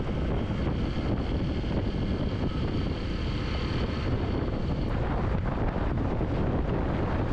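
Motorcycle riding at speed: steady wind rushing over the microphone, with engine and road noise beneath.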